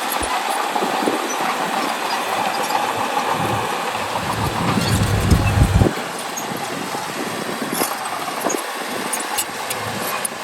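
Bulldozer at work: its diesel engine runs steadily with scattered sharp metallic clanks, swelling louder for a moment about five seconds in.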